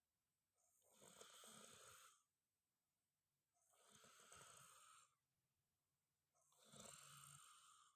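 A person snoring: three long snores, one about every three seconds, with quiet gaps between them.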